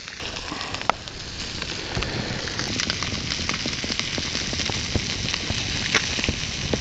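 Trout frying in a skillet over an open wood campfire: a steady sizzle, getting a little louder about two seconds in, dotted with many small crackles and pops.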